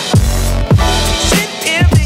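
Hip hop music with a heavy bass drum beat and pitched synth lines.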